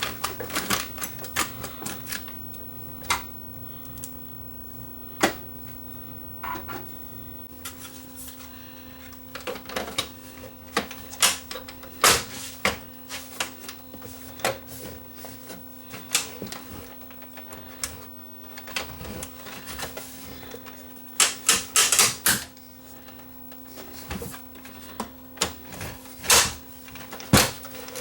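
Irregular clicks and knocks of a Sony EVS7000 Hi8 video deck's casing parts being handled and fitted back together during reassembly, with a quick run of four clicks about three-quarters of the way through.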